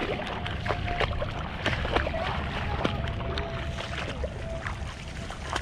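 Footsteps wading and splashing through shallow floodwater over grass, a string of short, uneven splashes.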